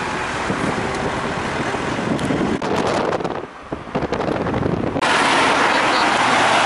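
Street traffic noise with wind on the microphone, in several abruptly cut takes: a steady rush, a quieter stretch with a few clicks about three seconds in, then a louder rush from about five seconds.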